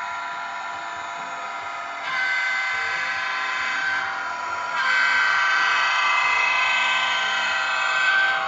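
Model locomotive sound decoder playing a diesel locomotive engine sound through a small speaker, steady and thin with little bass. It steps up louder twice, about two seconds in and again near five seconds.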